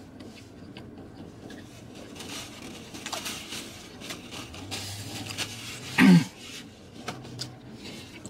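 Paper napkin rustling and small handling clicks while eating. About six seconds in comes a short, loud vocal sound falling in pitch, just after a low hum.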